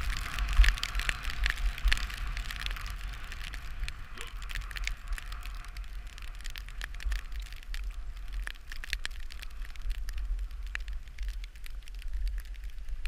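Skis sliding and scraping over packed snow, a hissing, crackling noise that is strongest in the first few seconds, under a steady low rumble of wind buffeting the microphone as the skier moves downhill.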